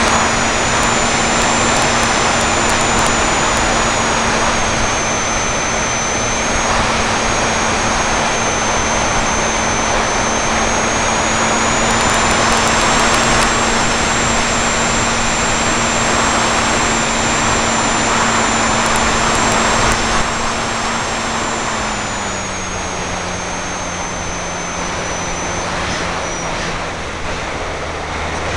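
Onboard sound of a Parkzone F4F Wildcat RC plane in flight: the electric motor and propeller hum steadily under a rush of wind over the taped-on camera. A thin high whine rides on top. About 22 seconds in, the motor's pitch drops slightly and the sound gets a little quieter.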